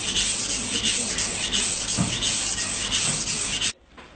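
Kitchen knife blade, fitted with a clip-on guide rail, stroked back and forth on a wet whetstone: a gritty rasping at about two strokes a second that stops abruptly near the end.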